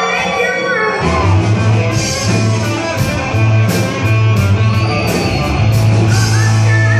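Live rock band: a woman sings alone for about the first second, then the full band comes in together with drums, crash cymbals, bass and electric guitar playing a loud riff.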